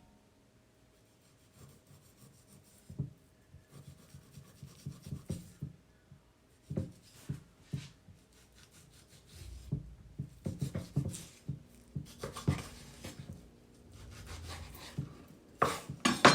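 Sharp knife trimming fat off raw beef on a cutting board: irregular rubbing and scraping strokes with light knocks of the blade against the board.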